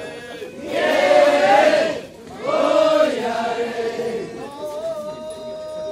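Men's voices chanting a kiyari, the festival's traditional work song: two loud drawn-out phrases sung by a group, then a single voice holding a long, wavering note.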